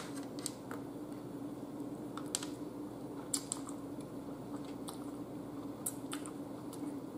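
Eating spaghetti with a metal fork: a handful of light, scattered clicks from the fork and mouth over a steady low hum.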